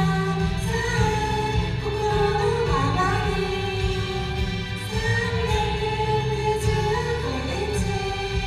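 Female voices singing a J-pop song together over steady instrumental accompaniment, live.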